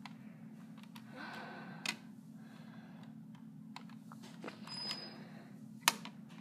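Plastic thermostat buttons clicking as they are pressed, a few separate clicks, over a steady low hum.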